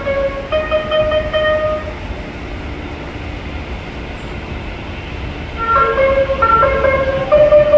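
Electric multiple-unit train at a station platform: a steady low rumble, twice overlaid by short electronic tones stepping between a few pitches, once near the start and again from a little before the end.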